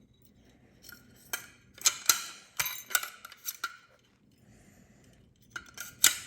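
A 15mm wrench clinking and scraping against a nut inside a rattle reel's tube as the nut is worked loose a little at a time. The sharp clinks come in irregular bunches, stop for about two seconds past the middle, then start again near the end.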